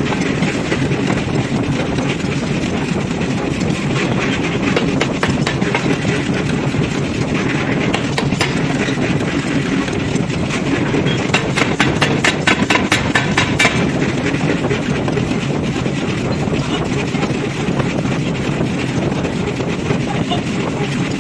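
Heavy forging machinery running with a steady loud din, with stretches of rapid, evenly spaced knocking partway through.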